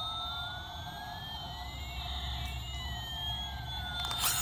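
Battery-powered toy airplane's electronic sound chip playing a slow siren-like tone: one pitch slowly rises while another slowly falls, the two crossing about halfway, over a steady buzzing tone. A click about four seconds in.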